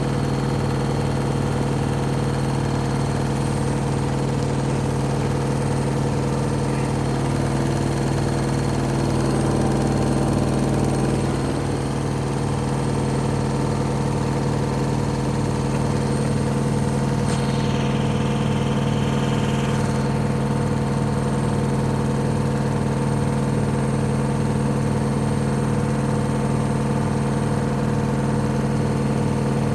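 Hoover Vision HD washing machine on its spin cycle with a very unbalanced load: a steady motor hum and whine with a regular low pulsing beat from the off-balance drum.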